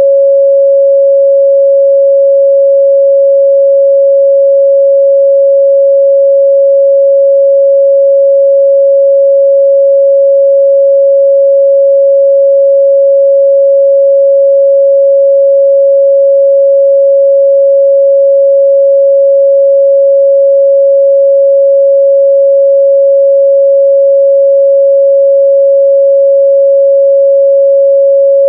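A 553 Hz sine-wave test tone, loud and perfectly steady, a single pure pitch with no overtones.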